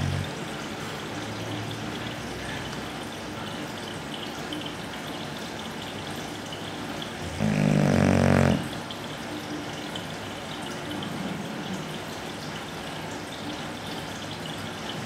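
A sleeping dog snoring: one loud, rough snore lasting about a second, about eight seconds in, with faint breathing sounds between snores.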